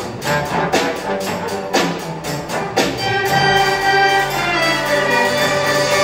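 School youth orchestra playing: bowed strings and woodwinds with sharp percussion hits through the first three seconds or so, then held chords.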